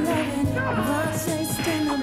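Background music: a song with a steady bass line and a wavering sung melody.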